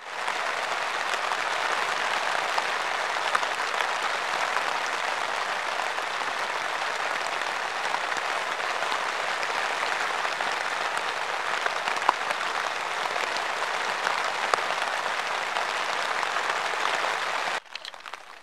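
Heavy rain falling steadily on a camping tent, a dense hiss with single drops ticking now and then; it cuts off suddenly near the end.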